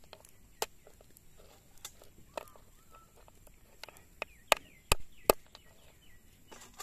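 A wooden stick knocking crab claws against a wooden chopping board to crack them open: a string of sharp knocks, the three loudest close together about two-thirds of the way through. Chickens cluck a few times in the background near the middle.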